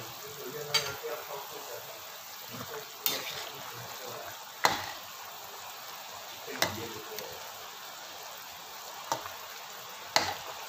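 Pot of chicken and green-chili soup boiling hard, a steady bubbling and sizzling, with about six sharp knocks scattered through, the last as a utensil goes into the pot near the end.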